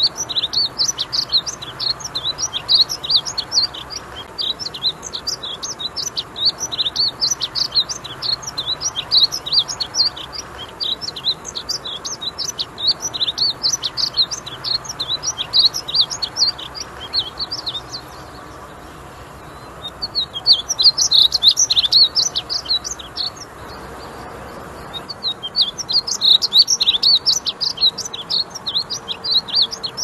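Male painted bunting singing: a fast run of high, sweet warbled notes that goes on almost without a break, pausing briefly twice in the second half.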